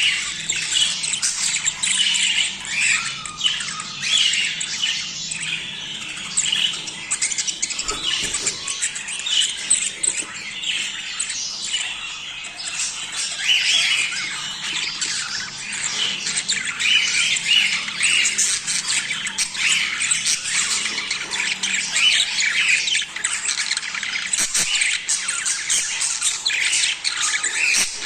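A flock of budgerigars chattering and squawking without a break, many birds calling over one another in a dense, busy warble.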